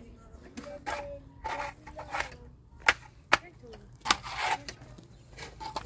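Hand trowel scraping wet plaster onto a block wall in repeated short strokes, with two sharp taps of the trowel about three seconds in.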